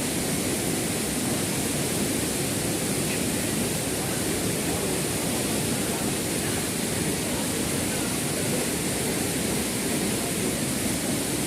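Waterfall and stream water rushing, a steady unbroken noise.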